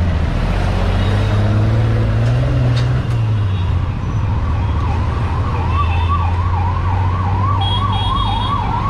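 An emergency-vehicle siren wailing quickly up and down, about three sweeps a second, starting about four seconds in, over a steady low engine idle that swells briefly about two seconds in.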